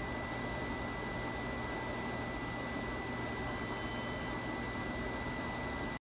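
Steady hiss with a low hum and a thin, steady high-pitched tone, cutting off suddenly at the end.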